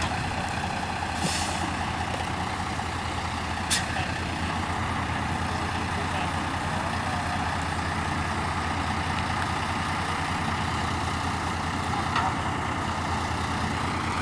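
Engine of a heavy 6x6 military tractor running steadily with a deep, even hum. A short hiss comes about a second in, and there is a sharp click near four seconds.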